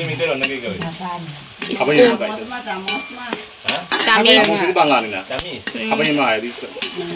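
Metal spatula stirring and scraping food frying in a cast-iron wok. The oil sizzles, and the spatula clicks and scrapes against the iron again and again.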